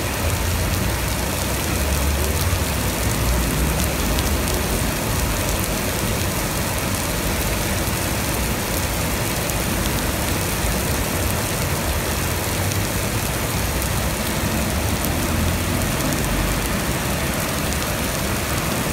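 Torrential cloudburst rain pouring onto flooded pavement: a dense, steady hiss of countless drops splashing into standing water, with a low rumble underneath.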